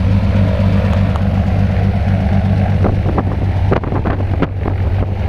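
Light single-engine high-wing plane's piston engine idling on the ground with its propeller turning: a loud, steady low hum. From about three seconds in, gusts of propeller wash buffet the microphone.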